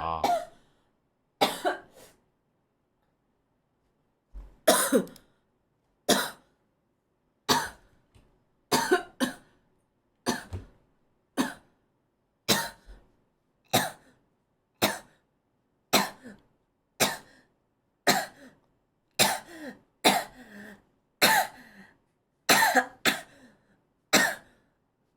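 A person coughing over and over: mostly one short cough about every second, sometimes two in quick succession, with complete silence between them.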